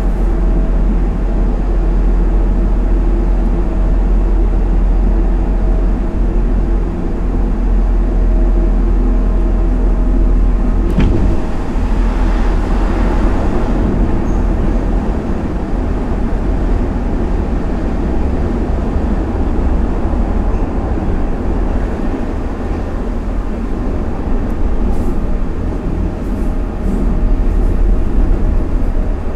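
Hanshin Line express train running at speed, heard from inside the passenger car: a steady low rumble of wheels on rail with a faint steady hum. About a third of the way in, after a click, the noise swells louder and brighter for a few seconds as the train runs past a station platform.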